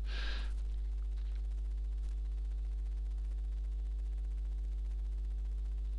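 Steady low electrical hum with a ladder of evenly spaced overtones, unchanging throughout.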